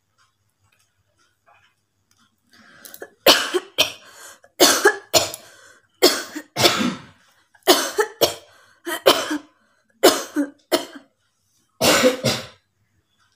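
A person coughing on purpose, over and over in quick pairs of coughs, starting about three seconds in.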